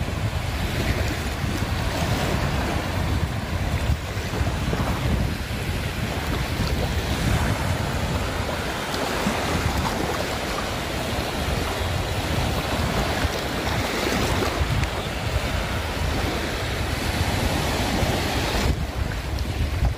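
Sea waves washing in, with wind buffeting the microphone as a steady low rumble.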